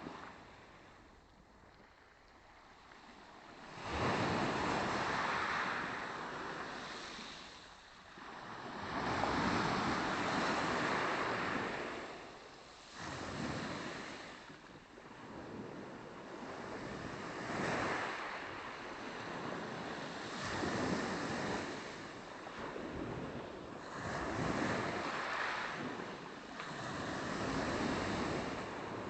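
Small sea waves breaking and washing up a pebble shore, a new surge every three to four seconds, each swelling and fading away.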